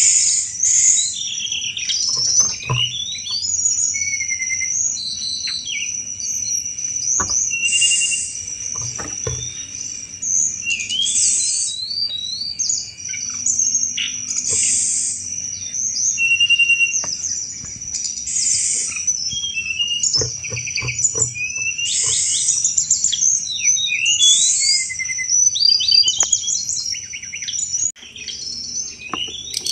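Tledekan gunung (blood-breasted flowerpecker) singing busily: a continuous string of short, sharp, high chirps and rattling 'cetrek' notes, over a steady thin high-pitched whine.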